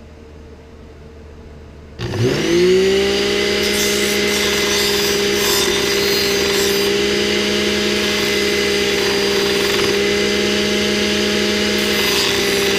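Blender motor driving a sanding disc switches on about two seconds in, its whine rising quickly to a steady pitch and then running steadily. Scratchy sanding comes and goes over the motor as a wooden spoon's bowl is worked lightly against the spinning disc.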